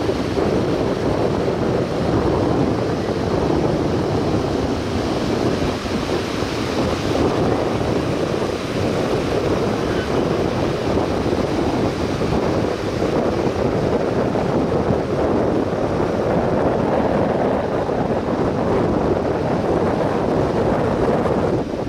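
Steady wind noise on the microphone and the wash of the sea, with the outboard motor of a small RNLI inflatable lifeboat running at speed through it.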